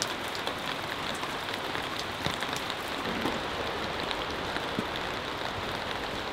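Steady rain, with many separate drops tapping close by.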